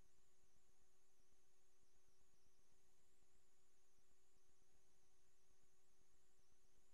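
Near silence: only a faint, steady electronic hum and hiss.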